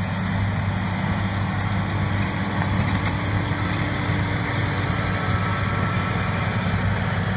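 John Deere tractor running steadily under load as it pulls a power harrow and seed drill through stubble, a constant engine drone with a low hum.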